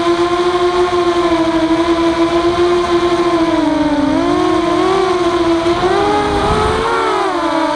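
Walkera F210 racing quadcopter's motors and propellers whining in flight, a steady high buzz. From about four seconds in the pitch wobbles up and down and splits into several tones as the motors change speed through a banking turn, with a short low rumble about six and a half seconds in.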